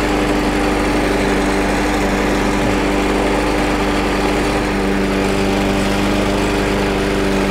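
Briggs & Stratton Classic single-cylinder lawn mower engine running at a steady speed, just started and still cold.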